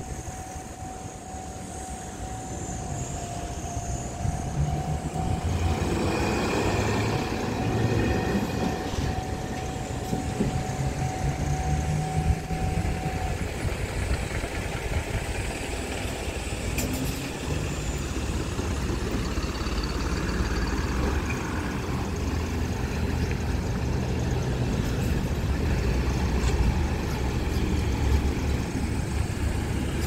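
Level-crossing alarm sounding a steady tone, which stops a little under halfway through as the barriers lift. Road traffic runs over the crossing: cars and trucks with engines running, a louder rumble building a few seconds in.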